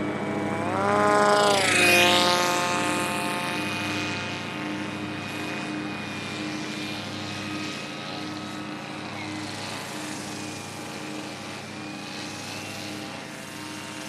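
Radio-controlled autogyro's motor and propeller passing close overhead. The pitch rises as it approaches and drops sharply as it goes by about two seconds in, then the sound runs on more faintly with small changes in pitch as it flies around.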